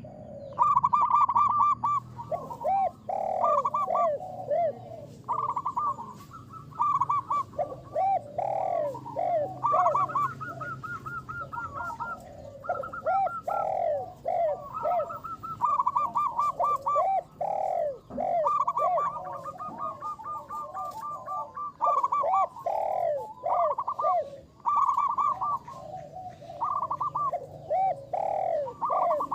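Zebra dove (perkutut) singing: phrase after phrase of short, bouncing cooing notes, repeated with brief gaps throughout.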